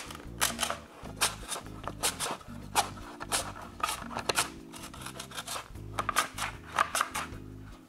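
Sweet potato pushed over a mandoline slicer's blade, a quick run of short rasping cutting strokes about two or three a second, each one shaving off a round slice. Background music plays underneath.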